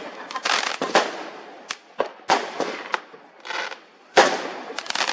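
Consumer fireworks going off in a rapid series of sharp bangs, each trailing off in crackle. A short fizzing hiss comes a little past the middle, and the loudest bang follows just after it.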